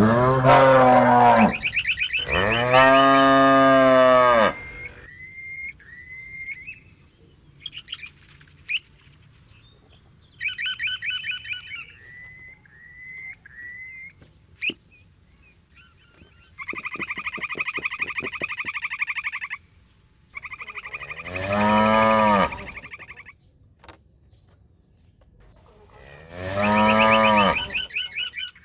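Cows mooing: two long, loud moos at the start and two more in the last third. Quieter, higher short calls and chirps come in between, and a buzzy call lasts about three seconds in the middle.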